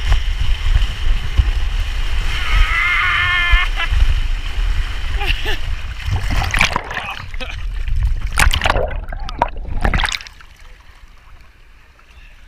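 Water and air rushing over the microphone during a fast waterslide ride, with a wavering yell about two seconds in and splashing toward the end. The rush cuts out suddenly and goes much quieter about ten seconds in.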